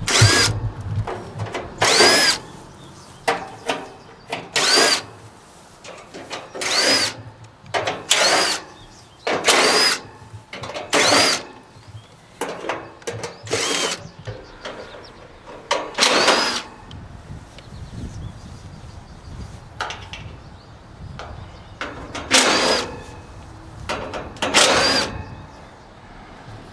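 Cordless drill/driver running in over a dozen short spurts, each whirring up and back down in pitch, as it backs the screws out of an air conditioner condenser's sheet-metal panels.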